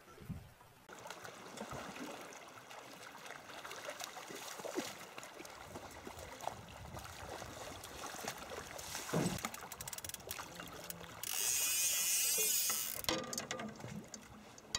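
A hooked steelhead splashing at the surface beside an aluminium drift boat while it is brought in, with scattered knocks and clicks from the boat and gear. A loud rushing splash-and-hiss lasts about two seconds near the end.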